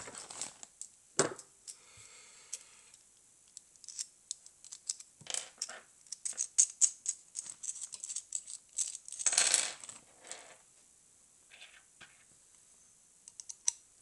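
Small metal tools clinking and rattling as a hand rummages for a screwdriver. A sharp click comes about a second in, then a run of clicks gathers in the middle with a brief scrape. A few light clicks follow near the end.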